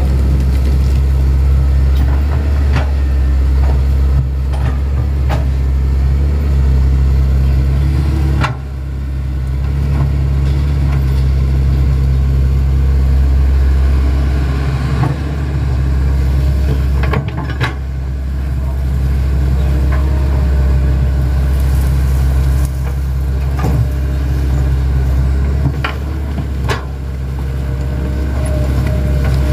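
Hitachi 110 excavator's diesel engine running steadily while digging, with scattered sharp knocks. The engine sound dips briefly three times, roughly every eight to nine seconds.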